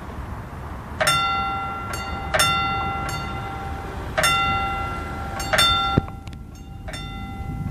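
A level-crossing warning bell striking a single ringing tone at uneven intervals of about one and a half seconds, each strike ringing on until the next, over a low rumble of the train approach and street. Near the end the strikes suddenly turn fainter.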